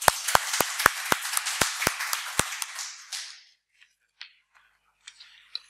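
Applause from a small audience, a few separate claps standing out from the rest, dying away after about three seconds.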